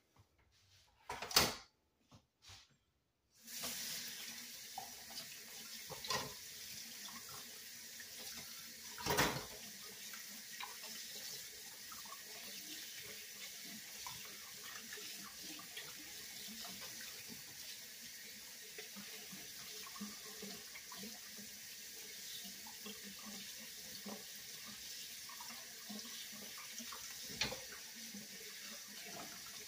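Kitchen tap running into a stainless steel sink for hand-washing. The tap comes on about three and a half seconds in and runs steadily, with a few sharp knocks, the loudest about a second in before the water starts.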